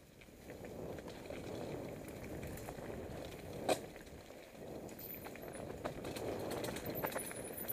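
Mountain bike riding down a leaf-covered dirt trail: steady tyre rolling noise over the ground, with scattered rattles and clicks from the bike and a sharp knock a little over three and a half seconds in.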